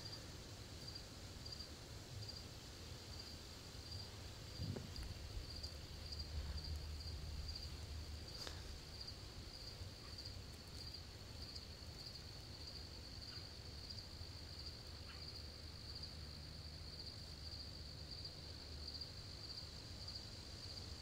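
An insect's high, steady trill, pulsing quickly and evenly throughout, with a faint low rumble underneath and an occasional soft click.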